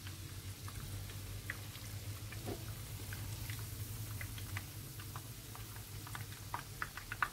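Egg-battered bread squares frying in sunflower oil, the oil sizzling with scattered small crackles and pops that come more often near the end, over a steady low hum.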